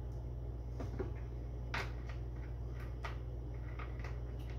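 A few light clicks and taps as a plastic vegetable-oil bottle is handled and its cap screwed back on, the clearest about two seconds in, over a steady low hum.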